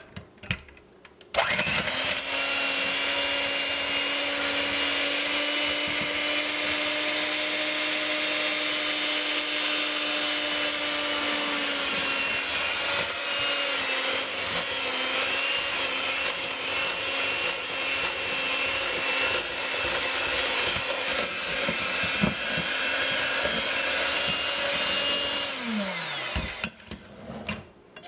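Electric hand mixer whipping thick shea butter lotion in a glass bowl: a few light knocks, then the motor starts about a second in and runs steadily at an even pitch. Near the end it is switched off and its whine falls away as the beaters slow to a stop.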